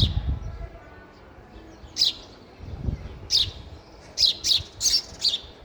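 Sparrows chirping: short, high, single chirps that fall in pitch. They come a couple of seconds apart at first, then quicker, about one every half second, near the end. A soft low thump sounds about three seconds in.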